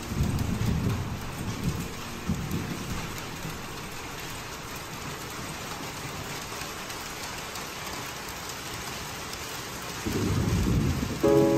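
Steady rain with low rolls of thunder, one in the first few seconds and another near the end.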